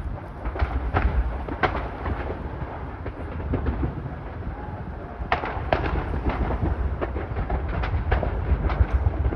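Irregular sharp cracks and bangs from a large industrial fire, more of them in the second half, over a steady low rumble.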